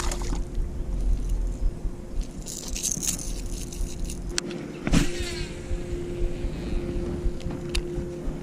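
Scattered clicks and rattles of fishing tackle being handled, with a sharper click and a short falling zip about five seconds in, over a steady low hum.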